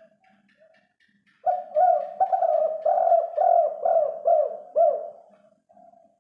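Spotted dove (tekukur) cooing: a few soft coos, then about a second and a half in a loud, fast run of rolling coos lasting some three and a half seconds, trailing off into softer coos.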